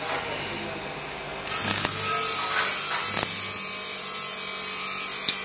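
Stick (arc) welding on a steel knife tang: the electrode's arc gives a steady crackling hiss that gets louder about a second and a half in.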